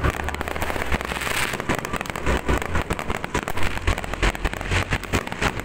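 Aerial fireworks bursting in quick succession: a dense, continuous crackle with deep booms underneath.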